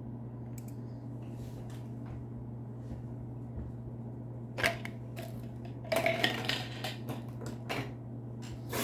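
Small hard objects being handled on a table: a sharp click about halfway through, then a cluster of clicks and light knocks, and one more click near the end, over a steady low hum.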